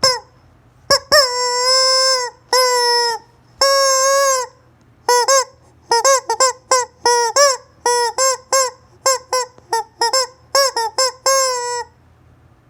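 Rubber chicken squeeze toy squawking as it is squeezed: three long drawn-out squawks, then a quick run of short squeaks, about two or three a second.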